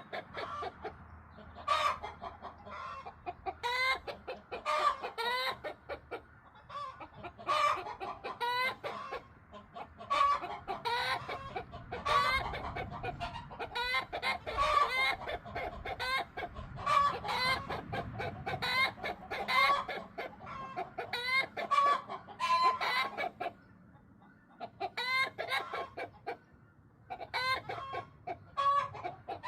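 Several backyard hens clucking and cackling in overlapping, repeated calls: the loud egg song hens make around laying. The calls ease off briefly a few seconds before the end.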